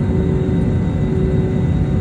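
Airbus A321neo cabin noise while taxiing: a steady low rumble with a constant droning hum from the engines at low power.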